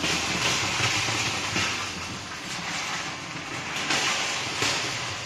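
Car driving away along a dirt track, its tyres crunching on loose gravel and dust with the engine under it, slowly fading.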